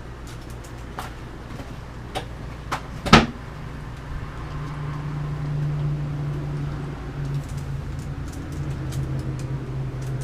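A few light clicks and one sharp knock about three seconds in, then a steady low machine hum that starts just after the knock and keeps on.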